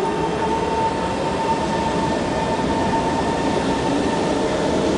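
SMRT C151 electric metro train pulling out of the station and gathering speed, its traction motors giving a rising whine over a steady rumble of wheels on rail.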